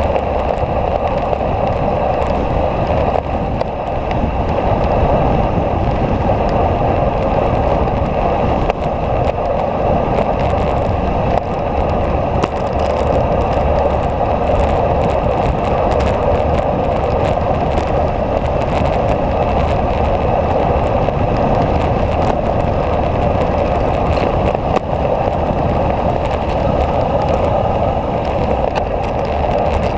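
Steady rush of wind buffeting the microphone, mixed with tyre and road noise, during a fast downhill run on a mountain road.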